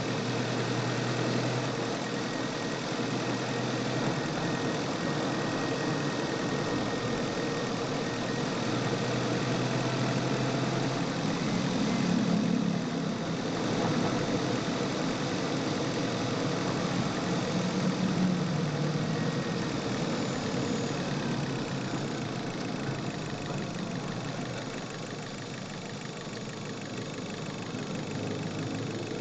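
Chevrolet car engine running steadily, heard close up from inside the engine bay, with a few low swells in the engine note.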